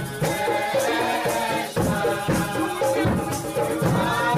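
Background music with a steady beat: a melodic line over regular percussion strokes about twice a second.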